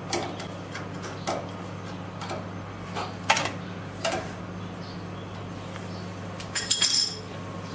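Scattered light metallic taps and clicks of the sensor mounting bracket and rod being adjusted by hand, with a quick rattle of clinks near the end, over a steady low electrical hum.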